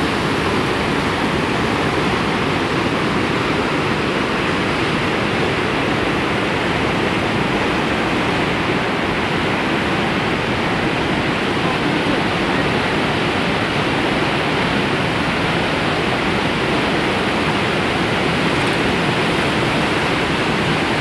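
Whitewater of a fast mountain river rushing over boulders in rapids: a steady, loud, unbroken rush of water.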